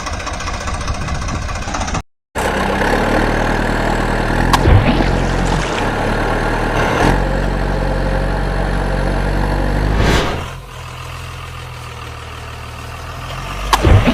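A vehicle engine running steadily at a low, even pitch. It starts after a sudden cut about two seconds in and drops to a quieter level about ten seconds in, with a few sharp clicks near the end.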